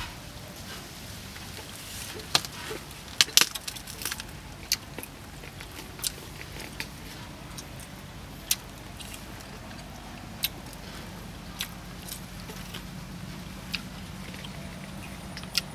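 A man eating grilled duck by hand: chewing with irregular sharp crackling clicks, a quick cluster of them about three seconds in and single ones every second or two after that, over a steady low background hum.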